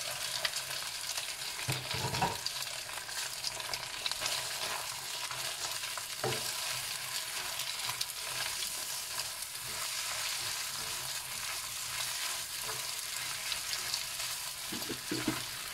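Meatballs, fish cake, crab sticks and onion sizzling in hot oil in a wok as they are stir-fried with a slotted plastic spatula, a steady frying hiss with a couple of knocks.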